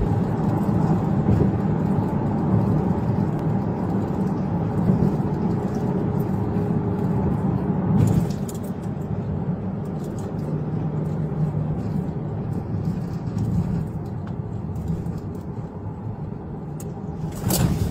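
Steady road and engine noise inside a moving police patrol car at highway speed, heard through the in-car dash camera, with a brief click about eight seconds in.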